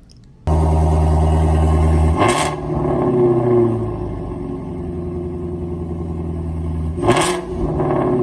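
Ford Mustang Shelby 5.2-litre V8 starting abruptly about half a second in and idling with an exhaust burble. It is blipped twice, a quick rev about two seconds in and another near the end, each falling back to idle.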